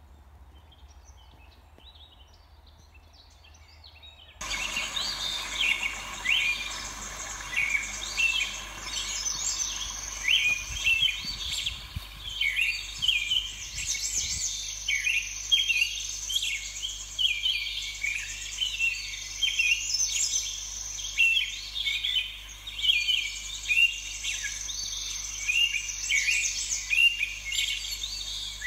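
Many songbirds singing together in a dense chorus of overlapping chirps and warbles, faint at first and suddenly much louder about four seconds in, over a steady high trill.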